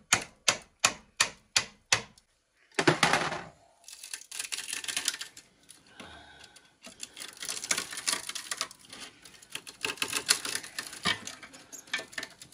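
Quick, even metal taps, about four a second, as a screwdriver is worked down beside a copper field coil; they stop about two seconds in. A short loud scraping crunch follows, then irregular scraping and crackling as the blade prys at the varnish-glued coil inside the generator's stator frame.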